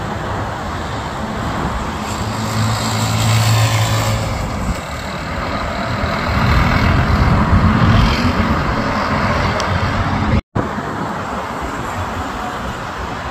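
Road traffic on a busy multi-lane street: cars driving past in a steady stream, with louder swells as vehicles go by around three and seven seconds in.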